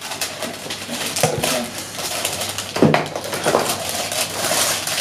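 Small hard objects clinking and clattering as they are handled, with rustling and faint voices in a small room.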